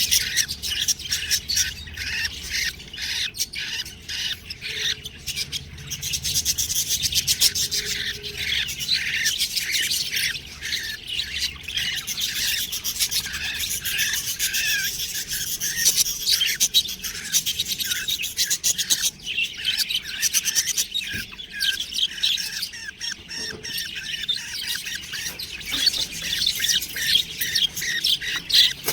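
Budgerigars chirping and chattering without pause, a dense stream of quick high chirps.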